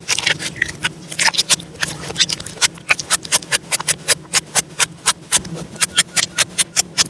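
Slime being squeezed and pressed by hand, giving a fast run of sharp wet pops and clicks, about five a second.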